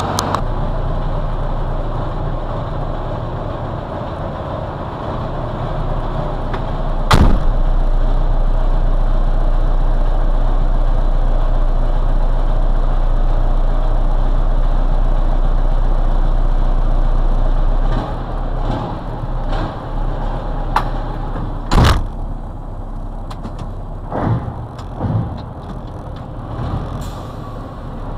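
Scania 142M's turbocharged, intercooled V8 diesel idling steadily, still cold after nearly two weeks standing. A sharp click comes about seven seconds in. In the second half, knocks and a heavy thump come from inside the cab over the idle.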